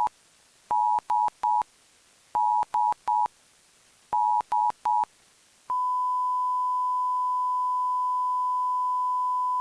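Emergency alert tones of a mock Emergency Alert System broadcast. Three quick groups of three short two-note beeps, then a long steady single tone starting about six seconds in.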